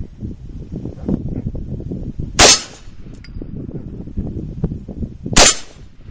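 Two rifle shots about three seconds apart from an AR-15 chambered in 7.62x39, each very loud and sharp with a short ringing tail. Wind buffets the microphone in between.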